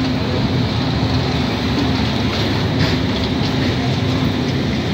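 Passenger train running alongside a platform, heard from on board at the open door: a steady rumble of wheels on rail with a faint low hum that comes and goes.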